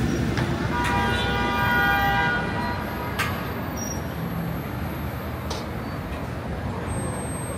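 Busy city street traffic with a car horn honking once, a held horn note lasting about a second and a half, starting about a second in. A sharp click follows shortly after.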